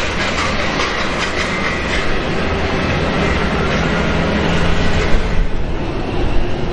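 Jet engines of a taxiing Airbus A319 airliner, a steady rushing noise with a faint whine; the sound turns duller after about five seconds.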